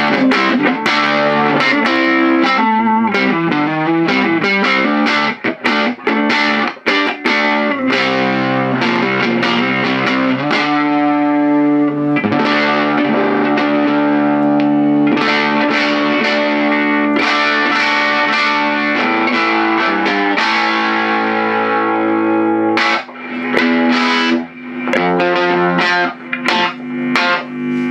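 Electric guitar, a Stratocaster on its neck pickup, played loud through a Mojotone 5F1 tweed Champ kit amp with a single 6V6 and its stock 8-inch speaker, the amp overdriven to a distorted tone. Picked notes and chords with long ringing held notes, broken off briefly a few times near the end.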